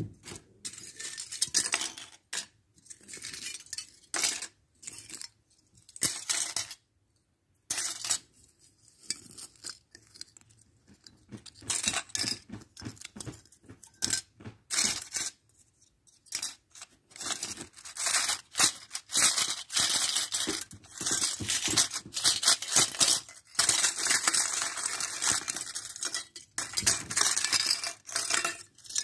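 Foil wrappers of chocolate coins crinkling and tearing as they are handled and unwrapped, in irregular bursts with short pauses, with now and then a light clink of coins.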